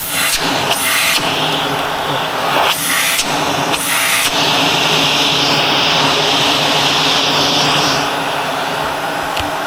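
Shark Navigator Lift-Away upright vacuum running during a suction test, its motor humming steadily. Four brief rushes of air come in the first four seconds, and a higher hiss rises from about five seconds in and drops back near eight seconds as the airflow changes.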